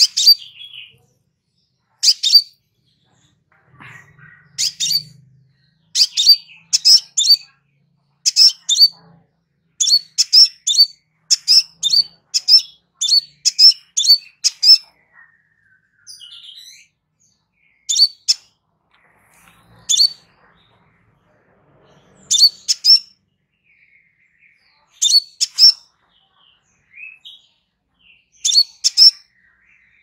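Crimson sunbird (kolibri sepah raja) calling: short, sharp, high chips, often in close pairs or triplets, repeated about two a second, with a few pauses between runs.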